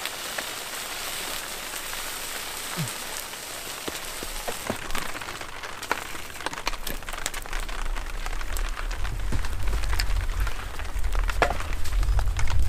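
Steady rain falling, with scattered sharp clicks and knocks through it. A low rumble builds from about halfway and is loudest near the end.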